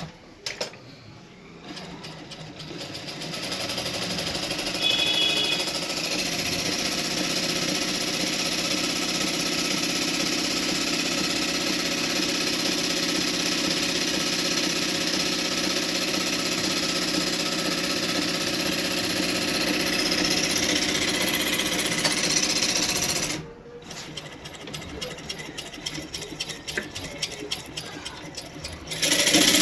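Jaxi JX-38 sewing machine running at a steady high speed for about twenty seconds after winding up. Near the end it drops to a quieter, uneven clatter, then runs fast again at the very end.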